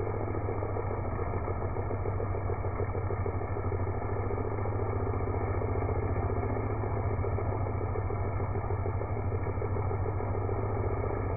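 An engine running steadily at an even speed, with no revving.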